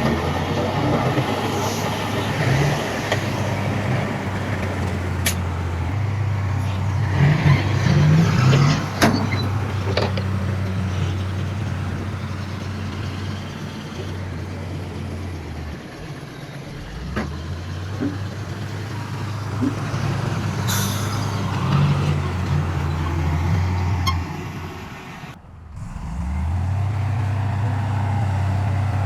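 Heavy diesel earthmoving machinery running steadily, its engine note rising and easing, with a few sharp metallic knocks. The sound breaks off briefly about three-quarters through, then the engine running picks up again.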